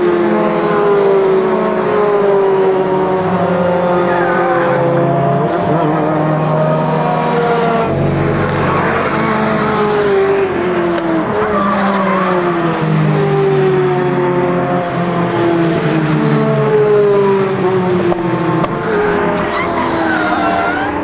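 Racing car engines running at speed trackside, their notes falling in pitch several times as cars brake or pass. Tyres squeal in places. Near the end a Mini racing car spins, its tyres squealing.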